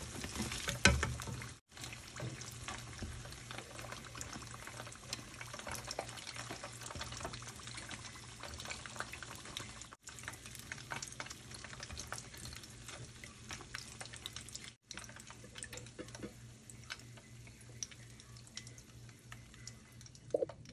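Wontons deep-frying in hot oil: a steady crackle of many small pops and bubbling. A single loud knock comes about a second in, and the sound breaks off for an instant three times.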